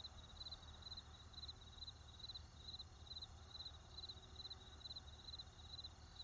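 Crickets chirping steadily and faintly, about two to three short pulsed chirps a second, over a low, steady rumble of distant traffic.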